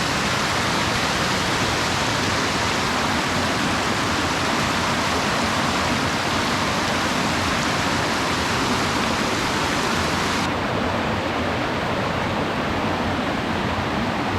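Steady rushing roar of a waterfall close by. About ten seconds in the highest hiss drops away and the rush goes on a little duller.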